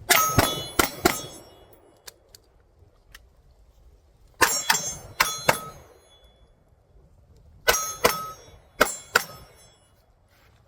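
Pistol shots in three quick strings of about four shots each, separated by pauses of a few seconds, with steel targets ringing after the hits.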